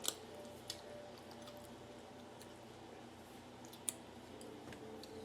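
Quiet chewing of a chamoy pickle, with a few short sharp clicks, the loudest about four seconds in.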